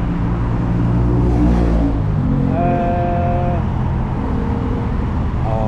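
Busy street traffic, led by the low rumble of a heavy vehicle's engine close by for the first couple of seconds. About halfway through, a steady pitched tone is held for about a second, and a shorter one sounds near the end.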